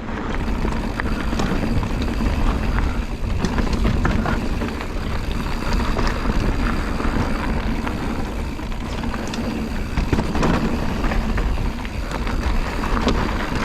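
Pivot Switchblade 29er mountain bike riding fast down a dirt bike-park trail: a steady rush of wind on the microphone and tyres on dirt, with scattered clicks and rattles of the chain and frame over bumps.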